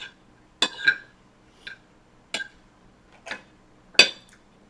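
A metal fork clinking against a dinner plate while scooping shrimp fried rice, about seven short irregular clinks, the loudest about four seconds in.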